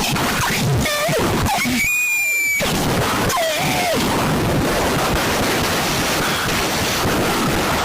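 Loud emergency-alert alarm audio: static-like noise throughout, with wavering pitch glides in the first few seconds and a short high steady beep about two seconds in, then a stretch of even hissing static.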